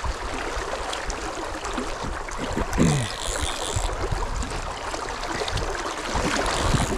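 Fast, shallow river water rushing and splashing steadily, with a brief higher hiss about three seconds in.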